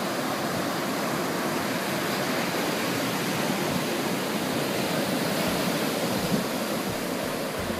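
Ocean surf breaking and washing up a sandy beach: a steady, even rush.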